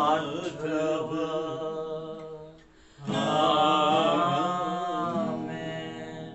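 A hymn sung by a solo voice with vibrato over a steady held instrumental accompaniment. One phrase dies away about two and a half seconds in, and a new phrase starts about half a second later and slowly fades.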